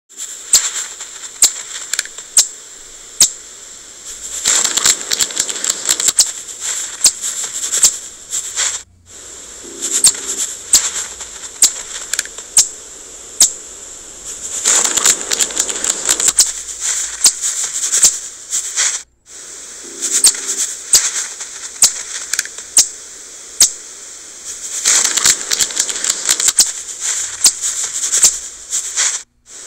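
Sound effect of the Google 3D augmented-reality chipmunk gnawing an acorn: sharp crunching clicks with denser crackly stretches. The sound runs as a loop that repeats about every ten seconds, with a brief break between repeats.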